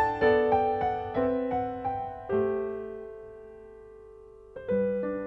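Gentle closing piano music: a run of single notes, then a chord left to ring and fade for about two seconds before the playing starts again near the end.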